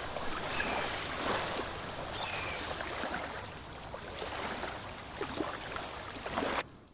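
Rushing water, a steady noisy wash with a few splashy surges, cutting off suddenly near the end.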